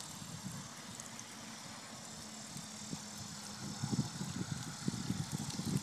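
Faint, steady outdoor background hiss with soft, low thumps and rustles that become more frequent in the second half.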